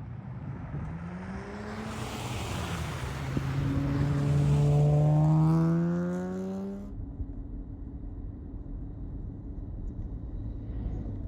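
A motor vehicle's engine climbing steadily in pitch as it accelerates, with road and tyre noise, loudest a little past the middle. It cuts off abruptly and is followed by a steady low rumble.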